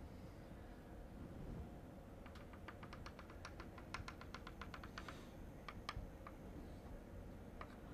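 Chalk tapping on a blackboard: a quick, even run of about twenty light clicks, some seven a second, as a dotted line is dabbed in, followed by a few single taps.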